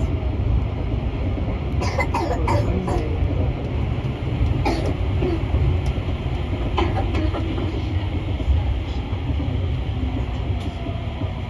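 Paris Métro MP14 rubber-tyred train running at speed through a tunnel, heard from inside the train: a steady low rumble. Short sharp clicks and squeaks cluster about two seconds in, with single ones near five and seven seconds.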